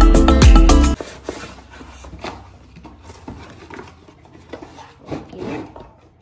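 Loud music that stops abruptly about a second in, then cardboard packaging rubbing, scraping and knocking as boxes and cardboard inserts are handled and pulled apart.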